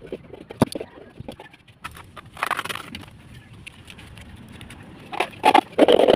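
Birds moving about, with scattered sharp taps and two louder noisy bursts, one about two and a half seconds in and one near the end.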